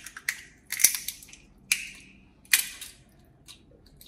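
Walnut shells being cracked and picked apart by hand: several sharp cracks and crunches in the first three seconds, the loudest about a second in and again near two and a half seconds, then a few faint ticks.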